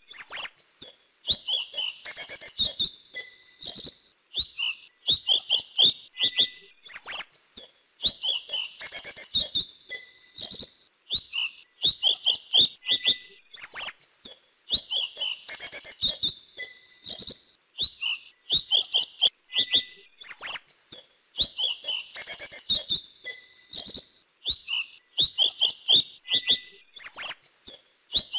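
Sepah bakau, a minivet, singing quick, high, thin whistled chirps in short phrases. The same sequence comes round about every seven seconds, as from a looped song-tutoring recording.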